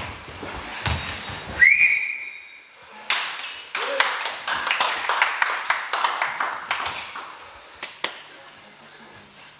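A single high whistle, rising sharply at first and then held steady for about a second. It is followed by a run of quick thuds and taps of athletes' feet jumping and landing on a gym floor, with voices mixed in.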